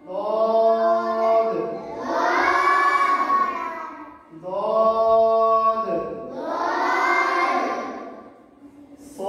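Call-and-response Quran recitation: a single voice chants a drawn-out line, then a class of children repeats it in unison. The exchange happens twice.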